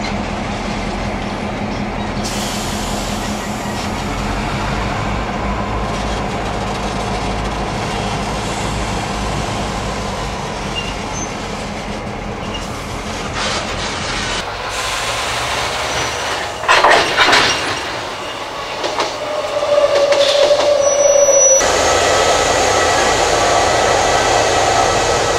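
Narrow-gauge cattle train wagons rolling slowly past, rumbling on the rails with a couple of loud clanks, then a brief steady wheel squeal. A Roots-blown EMD 645E diesel locomotive engine then runs loud and close for the last few seconds.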